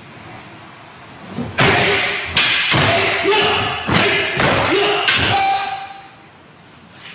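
Wooden practice swords (bokken) striking together about six times in quick succession during a paired sword kata, each clash with a loud kiai shout, ringing in a large hall.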